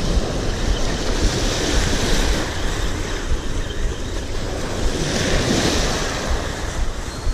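Small sea waves washing in and breaking against the shore close by, surging twice, with wind buffeting the microphone.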